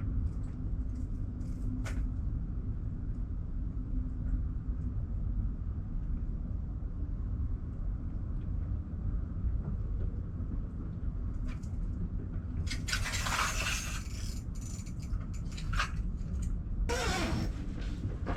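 Steady low rumble, with two loud bursts of scraping, one about thirteen seconds in and one near the end.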